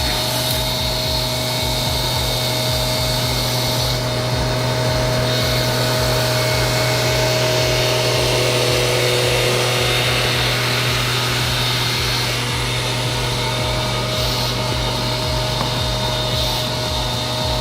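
Powered machinery running steadily, a constant drone with a high whine over it.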